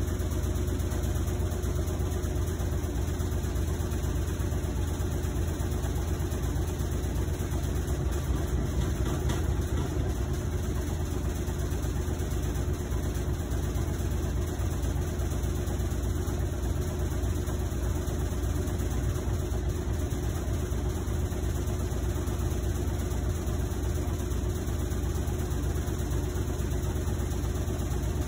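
Whirlpool WTW5010LW top-loading washing machine running mid-cycle: a steady low rumble with an even hum over it. The owner finds it terribly loud, like a freight train, and says Whirlpool's technician calls that normal for this machine.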